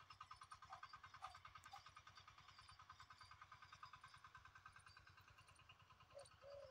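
Faint, distant engine of a small walk-behind power tiller running steadily with an even, rapid pulse.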